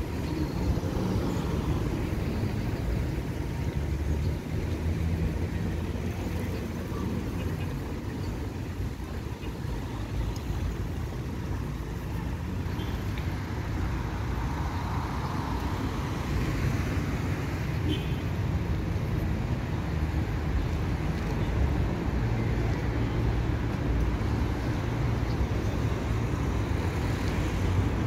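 City street traffic: car engines running and passing, a steady low rumble, with a nearer engine hum at the start and again near the end.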